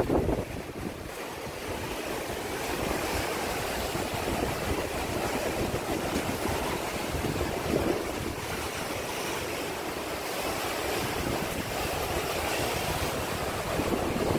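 Sea surf washing and breaking against rocks, a steady rushing noise, with wind rumbling on the microphone.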